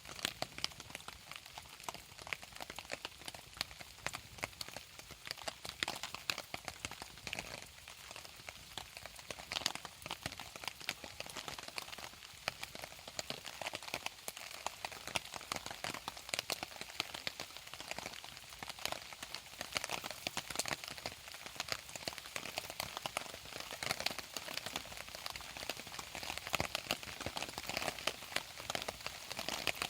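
Steady rain pattering on a surface: a dense, irregular run of small drop ticks.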